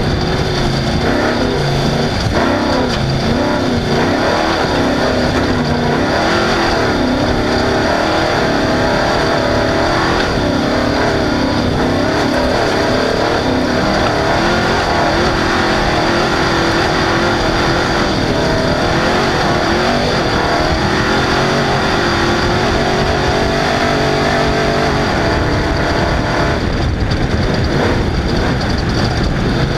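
Off-road race car's engine running hard, its pitch rising and falling again and again with throttle and gear changes, over a steady rush of noise.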